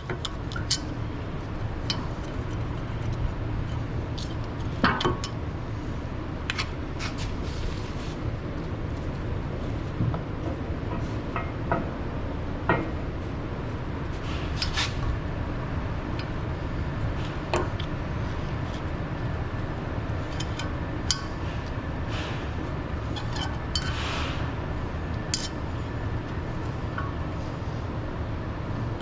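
Metal hand tools and parts clinking and ticking now and then while a wheel hub is worked on, over a steady low hum.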